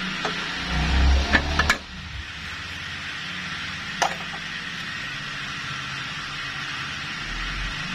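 Knocks and a few sharp metallic clicks from hand-tool work on a car AC compressor's mounting bolts, over a steady background hiss. A burst of knocking and clicks comes about a second in, and a single click comes about four seconds in.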